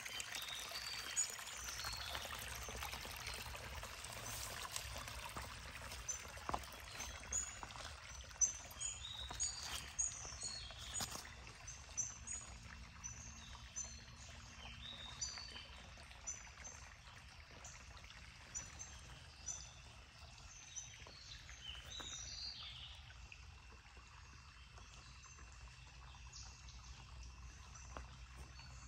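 Shallow forest stream trickling over sticks and leaf litter, loudest in the first few seconds. Through the middle, small birds call in many short, high chirps.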